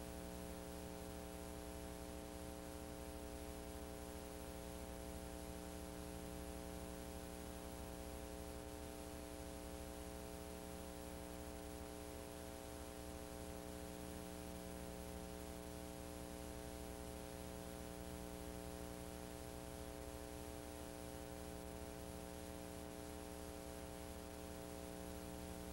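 Faint steady electrical hum with hiss, the background noise of an old videotape transfer playing over silent end titles, with no speech or music.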